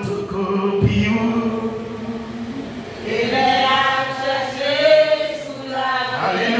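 Slow singing of a worship song in long held notes. One note is held at the start, and a second, fuller phrase begins about three seconds in.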